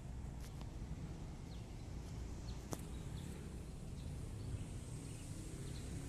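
Outdoor background noise: a steady low rumble with a few faint high chirps and a single sharp click a little under halfway through.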